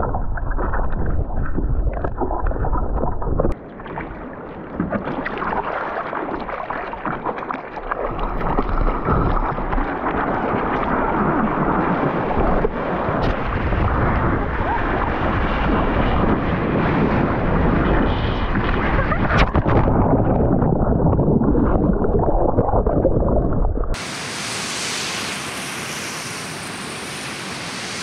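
Water rushing past a surfboard-mounted camera, muffled and deep at first while the camera is under water, then opening out into a brighter splashing rush about three seconds in as the board runs along the surface. In the last few seconds it cuts suddenly to a quieter, even hiss of breaking surf.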